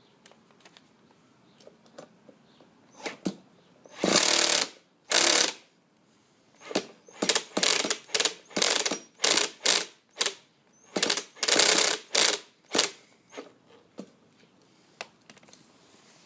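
1/5 scale nitro RC motorbike engine being cranked by its starter in about fifteen short, rattling bursts, never catching. The engine won't start, and the clutch jams as it is turned over.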